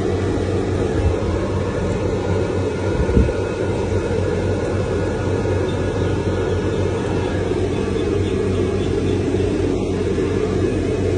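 A steady low mechanical drone with a hum underneath, and one short low knock about three seconds in.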